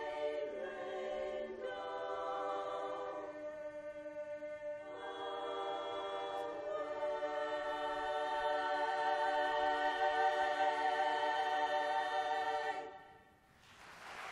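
Women's barbershop chorus singing a cappella in close harmony: a few short phrases, then a long held final chord that cuts off cleanly. Applause starts just before the end.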